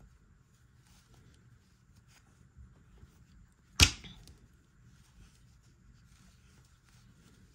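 Faint handling sounds of crocheting, a hook worked through yarn by hand, with one sharp click a little under four seconds in.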